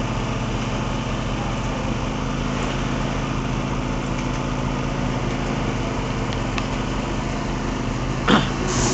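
Engine of concrete-pouring machinery running steadily, its pitch shifting slightly about two seconds in and again about five seconds in. A brief shout rises near the end.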